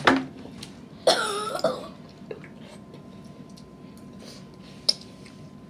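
A child clears their throat about a second in, a short rough voiced sound, as the heat of hot and spicy instant noodles catches in the throat. A sharp click comes just before the end.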